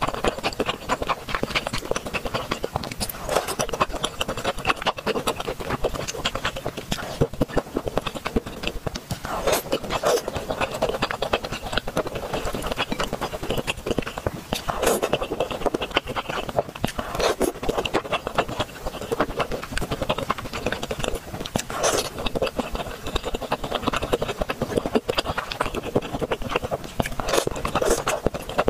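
Close-miked eating of spicy tteokbokki rice cakes in sauce: chewing with a dense stream of short wet mouth clicks and smacks.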